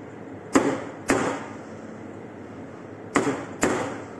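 Stainless steel milk pitcher knocked down on a steel surface four times, in two pairs, each knock ringing briefly: tapping out the air bubbles in freshly steamed milk foam.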